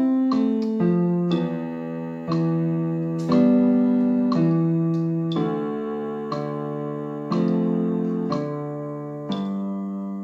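Keyboard with a piano sound playing a simple melody on the notes C, D and E over an accompaniment, notes struck about once a second, some short and some held.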